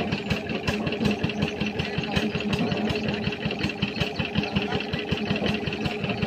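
Stationary engine powering a tubewell drilling rig, running steadily with a fast, even beat of about eight pulses a second.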